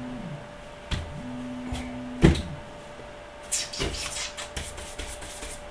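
Objects being handled and set down on a workbench: a few sharp knocks, the loudest about two seconds in, then a cluster of clattering and rustling. A short low hum sounds twice in the first half.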